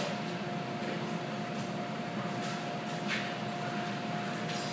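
Steady machine hum of a commercial bakery kitchen, with a constant whining tone through it and a few faint light ticks.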